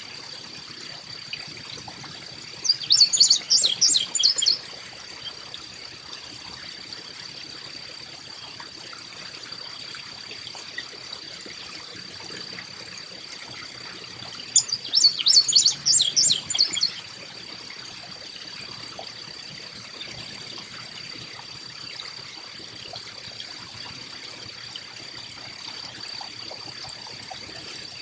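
A small songbird calls twice, each time a burst of about two seconds of rapid high notes, the second some twelve seconds after the first. Under it run a steady trickle of water and a constant high tone.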